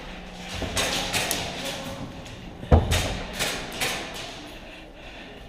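One loud, heavy thump about two and a half seconds in, among a few fainter taps and clicks.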